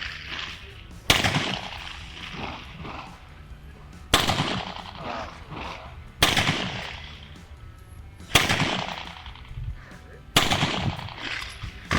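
Five gunshots about two seconds apart, each followed by a decaying echo: a string of handloaded cartridges fired over a ballistic chronograph.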